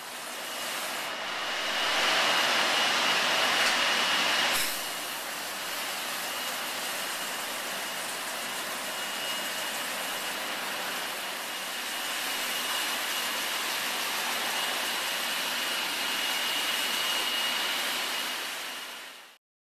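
Optima steam cleaner's spray gun hissing as it jets steam onto car floor mats, with a thin high whistle running through it. The hiss is loudest for the first few seconds, drops suddenly about four and a half seconds in, and carries on steadily.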